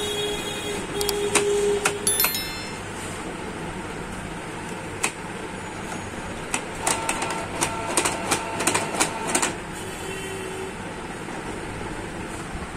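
Sharp plastic clicks and taps as a hand works inside a Canon PIXMA inkjet printer's paper path: a few in the first two seconds, then a faster run of them from about six and a half to nine and a half seconds in. Steady traffic-like noise runs underneath.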